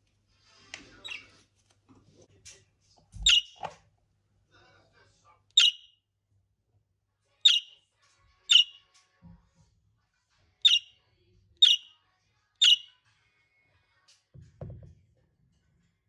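Small pet animal giving a series of short, sharp, high chirps. Seven loud ones come about one to two seconds apart, with fainter ones before them, and each drops quickly in pitch. A soft thump comes with the first loud chirp, and a low rustle comes near the end.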